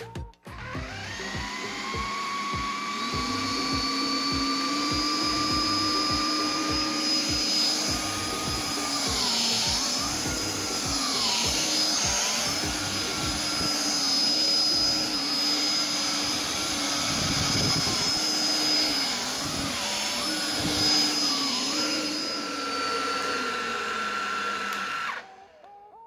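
Philips SpeedPro Max cordless stick vacuum running on its highest power setting, cleaning a sofa with its small head: a steady motor whine whose pitch dips briefly several times. It switches off near the end.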